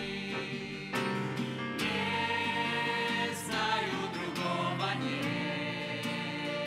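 A church choir singing a sacred song with sustained, held notes.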